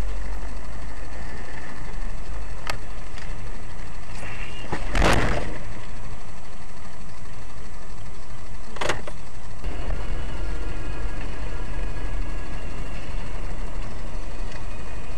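Dash cam recording of in-car road and engine rumble, with a brief loud bang about five seconds in and a short sharp knock near nine seconds.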